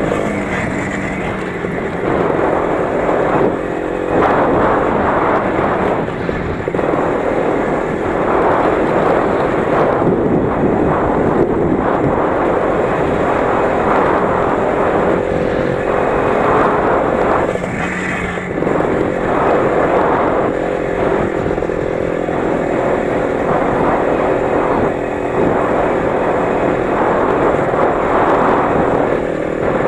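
20-horsepower engine of a Lider 3.221 running hard while driving cross-country over rough forest ground, its revs rising and dropping every few seconds as the throttle changes.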